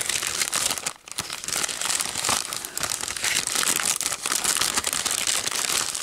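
A clear plastic sleeve crinkling and rustling as hands rummage through the paper cut-outs inside it. The sound is a continuous crackle of plastic and paper, with a brief lull about a second in.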